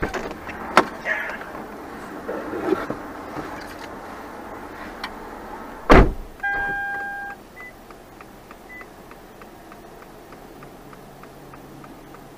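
Sounds inside a stopped car after a minor collision: a few knocks and faint voices, then a loud thump about six seconds in. A short electronic beep follows, then steady quick ticking, about three ticks a second.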